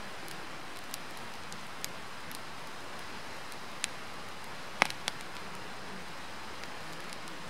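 Firewood burning in a campfire: a steady hiss with scattered sharp crackles and pops, the loudest snap about five seconds in, followed by a smaller one.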